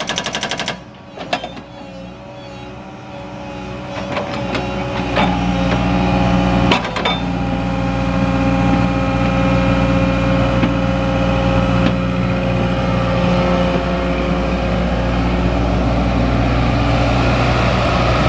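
A fast mechanical rattle stops within the first second. Then the excavator's Komatsu S4D102E-1 four-cylinder diesel engine runs, growing louder over several seconds and then holding a steady drone.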